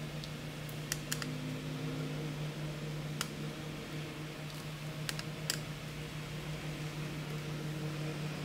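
Scattered small sharp clicks as a screwdriver works the screws on the plastic underside of a Toshiba NB200-series netbook and the loose screws are handled, in small clusters about a second in, three seconds in and five seconds in. A steady low hum runs underneath.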